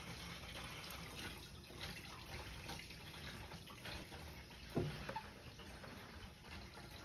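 Tap water running into a kitchen sink during dishwashing, faint and steady, with a few light clinks and one short knock a little past halfway.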